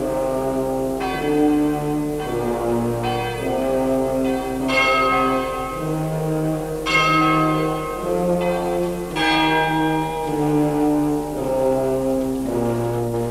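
Slow instrumental background music: held chords over a bass line that moves about once a second, with struck, ringing notes sounding roughly every two seconds.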